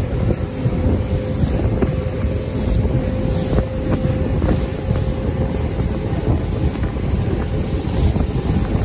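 Heavy wind buffeting on the microphone over the steady engine drone of a moving vehicle, with a faint steady hum running underneath.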